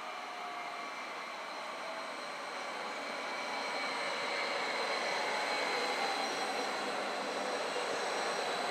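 Stadler FLIRT electric multiple unit pulling into a station, its running noise growing louder from about three seconds in as it draws alongside. Several faint whining tones fall slowly in pitch over the rumble.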